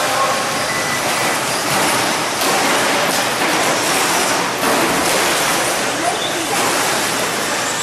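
Electric 2WD short-course RC trucks racing on an indoor dirt track: a steady, noisy din of motors and tyres on the dirt, with a few sharp knocks.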